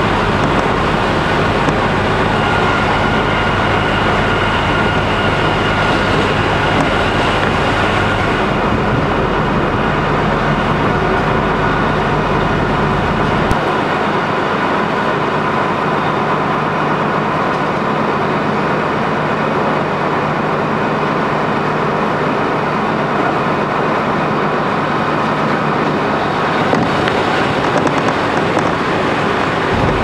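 Inside the passenger cabin of a KiHa 200 series diesel railcar under way: steady diesel engine drone with wheel and rail noise. It is in a tunnel at first, the sound opening out as it leaves about eight seconds in, and enters another tunnel at the very end.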